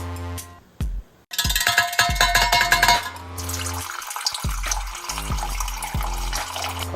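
Water being poured, splashing noisily for a couple of seconds and then running on more softly, over background music with a steady bass beat.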